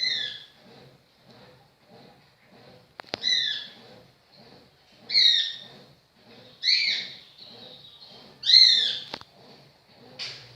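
A bird calling five times, each a short falling note, a second or two apart, the last ones the loudest. Under the calls runs a faint low pulsing of about two beats a second.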